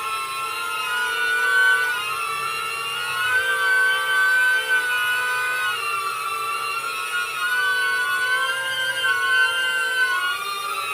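DJI Neo mini drone in flight, its motors and propellers giving a steady high whine of several close tones that waver up and down together as the motor speeds shift.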